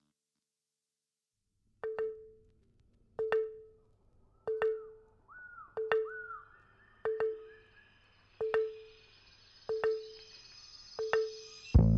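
Background music: after about two seconds of silence, a track begins with a single ringing note struck about every second and a third, with a few sweeping higher tones over it.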